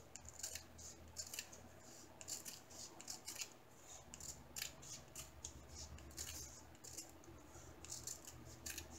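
Scissors snipping through a strip of printed paper in a string of short, quiet, irregular cuts.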